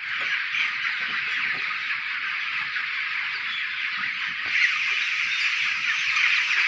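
Thousands of 15-day-old broiler chicks peeping all at once in a dense, unbroken chorus.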